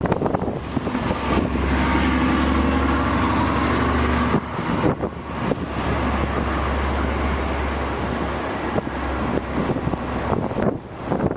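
Road traffic: a motor vehicle's engine hum passing close by twice, with wind gusting on the microphone before and after.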